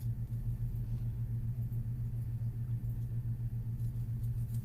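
A steady low hum with nothing else standing out.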